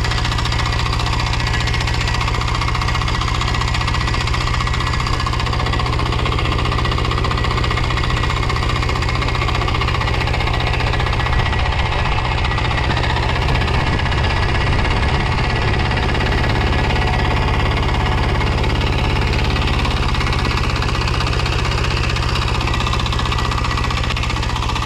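Mini rotavator's small engine idling steadily while its tines are at rest.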